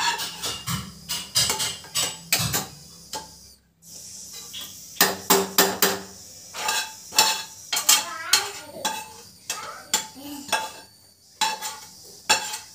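A spoon scraping and clinking against a frying pan, scooping sautéed masala out of it, in a quick irregular run of clinks and scrapes with a brief pause about four seconds in.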